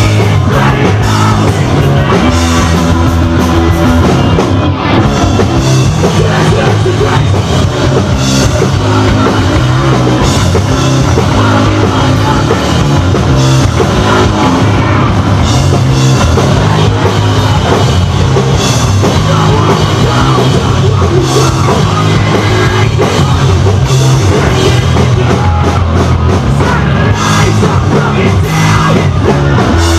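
Hardcore punk band playing live: electric bass, guitars and drum kit in a loud, continuous heavy song.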